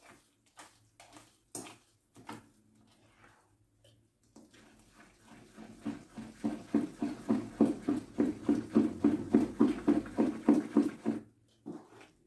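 Wooden spoon beating thick cornmeal cake batter in a large metal bowl. A few scattered knocks come first; from about four seconds in it settles into steady beating strokes, about four a second, which stop shortly before the end.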